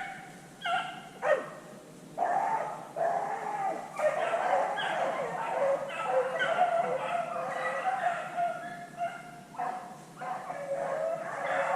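Pack of beagles baying while running a rabbit's track. A few short cries come first, then from about two seconds in several dogs bay at once in a steady, overlapping chorus.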